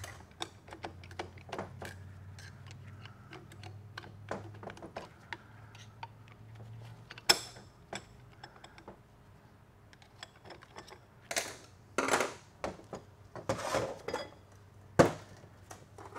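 Metal clicks and clinks of a TH350 transmission clutch drum being taken apart by hand, a hand tool working inside the drum and steel clutch plates clattering against the drum and the steel bench. Several sharper clanks come in the second half.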